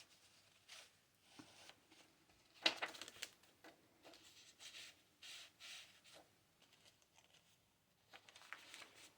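Faint rustles and light taps of paper as the pages and tags of a handmade paper journal are handled and turned, with one louder rustle a little under three seconds in.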